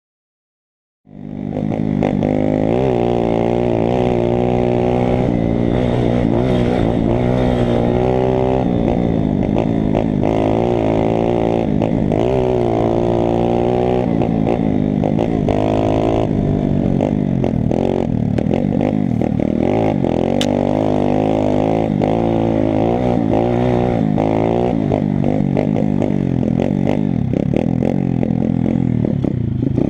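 Pit bike's single-cylinder four-stroke engine running under load, its pitch rising and falling over and over as the throttle is opened and closed. It starts suddenly about a second in.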